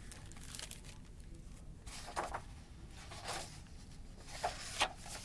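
A hardcover picture book being handled and its cover opened: a few short rustles and crinkles of the book's cover and pages, over a faint steady low room hum.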